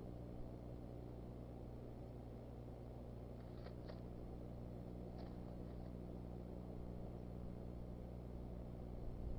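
Steady low electrical hum and hiss from a nest camera's audio feed, with a few faint short ticks about halfway through.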